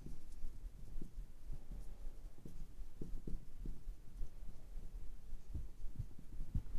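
A marker writing on a glass lightboard: irregular soft taps and strokes as words are written out.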